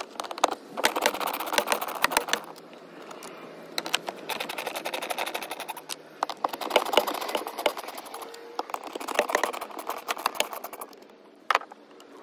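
Screwdriver with a T30 Torx bit backing screws out of the jet ski's plastic storage-bin mount. The tool rattles and clicks rapidly in several bursts of a second or two, with short pauses between screws.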